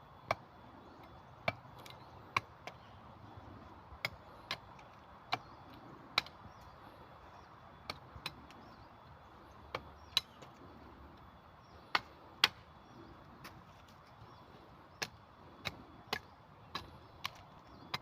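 Tent stakes being hammered into the ground: sharp knocks at irregular intervals, often in pairs a half second apart, with the loudest strikes about twelve seconds in.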